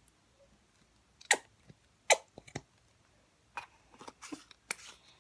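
Slime being made: sticky, wet clicks and squelches as red paint is squeezed into the glue mix and worked in, two sharp ones about a second in, then a run of smaller ones near the end.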